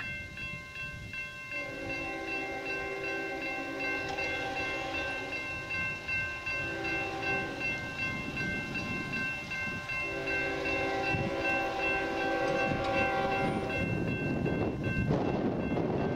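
A distant freight locomotive's horn sounds a series of blasts: a long one, a short one, then another long one. Under the horn a railroad crossing bell rings steadily. Near the end a rising rush of noise builds.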